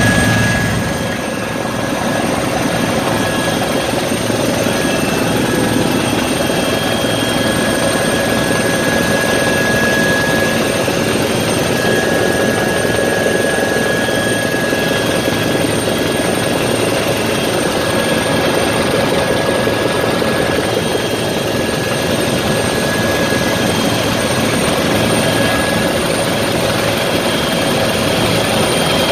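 Helicopter in flight heard from inside the cockpit: steady engine and rotor noise with a constant high whine running through it.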